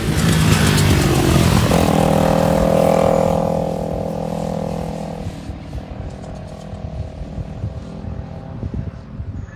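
Sport motorcycle passing close by, loud at first. Then its engine holds a steady note for a few seconds and fades as the bike rides away.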